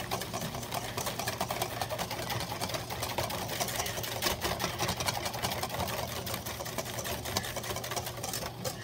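A whisk beaten fast against the sides of a stainless steel bowl, whipping a wet egg-yolk dressing: a quick, steady run of clicking and sloshing strokes. A low steady hum runs underneath.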